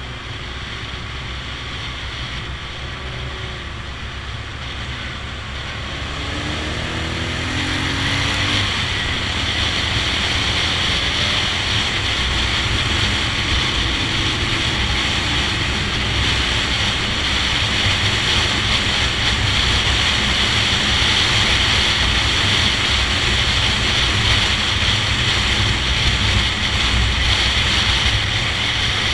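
Wind rushing over the microphone of a moving motorcycle, with the 1974 Honda XL250's single-cylinder four-stroke engine running underneath at road speed. The rush grows louder from about seven seconds in.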